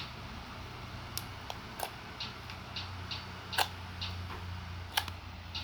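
Slime being squeezed and stretched by hand, giving about ten irregular small pops and clicks over a low steady hum.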